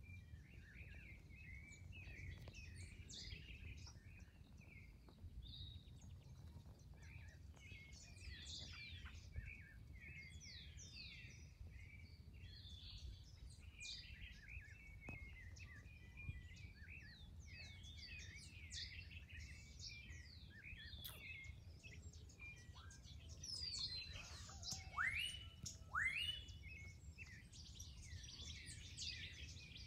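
Dawn chorus: many birds chirping and trilling at once, with a few louder, rising calls about 25 seconds in, over a faint low rumble.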